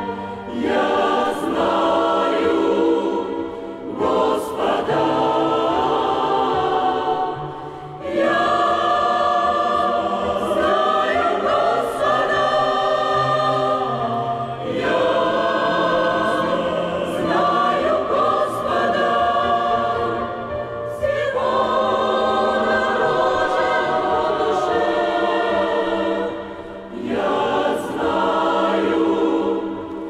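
Church choir singing a hymn in Russian, in long sustained phrases with brief pauses between them.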